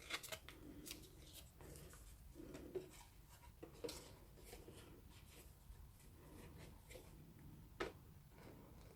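Near silence: room tone with a few faint light taps and rubs, the clearest a little before four seconds and near eight seconds.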